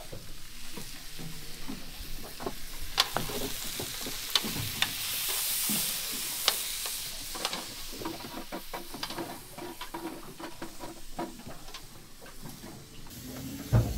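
Food sizzling in a hot frying pan, with the taps and scrapes of a utensil stirring it. The sizzle swells for a few seconds near the middle.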